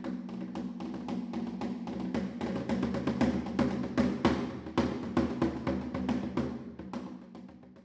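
Music: quick, evenly repeated drum strikes, about four a second, over a sustained low chord. It grows louder through the middle and fades out near the end.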